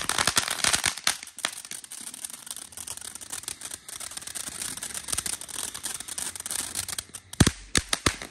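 Ground fountain firework spraying sparks with dense, continuous crackling and hiss. A louder sharp pop comes about seven and a half seconds in.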